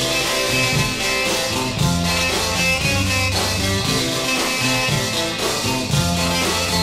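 Instrumental passage of an early-1960s rock-and-roll record: guitar over a walking bass line with a steady beat, no singing.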